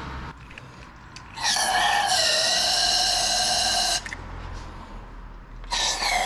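A loud high-pitched whine with a slightly wavering pitch, heard twice: for about two and a half seconds starting a second and a half in, and again starting near the end.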